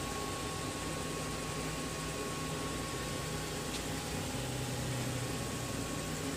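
Steady room hiss and low hum, with a faint steady high tone.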